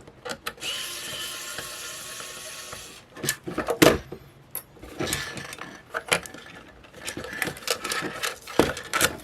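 A small handheld power tool's motor whirs steadily for about two and a half seconds, followed by a series of sharp plastic clicks and knocks as a small plastic camera body is worked apart.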